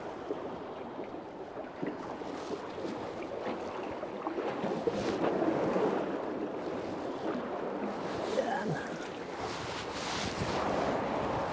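Sea water washing against the pier's pilings, swelling twice, with wind noise on the microphone.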